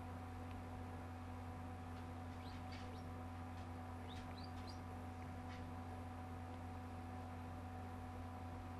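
A steady low electrical hum with a few constant tones above it, and a handful of faint, short high chirps or clicks between about two and six seconds in.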